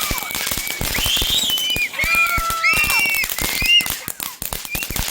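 Consumer fireworks cake going off: rapid crackling pops and bangs, with several short high whistles rising and falling over them.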